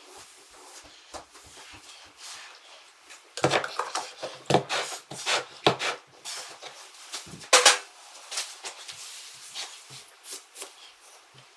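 Irregular scrapes, taps and clatters of hand tools and materials being handled during tile grouting work. The sounds come in a denser run in the middle stretch, with one sharp knock the loudest, about three quarters of the way through.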